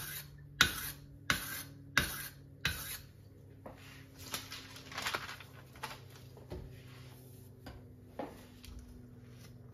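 Steel kitchen knife's edge dragged across a 240-grit whetstone to dull it on purpose: five short scraping strokes about two-thirds of a second apart, then only faint clicks of handling.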